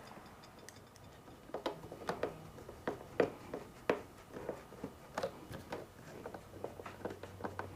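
Scattered faint clicks and small knocks of a screwdriver driving a Phillips screw into a motorcycle's plastic trunk panel.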